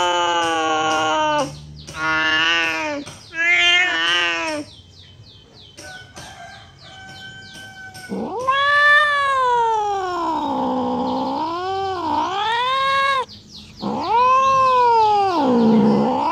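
A cat yowling angrily, caterwauling. It gives three short wavering yowls, pauses quietly for a few seconds, then gives two long drawn-out yowls whose pitch slides down low and climbs back up.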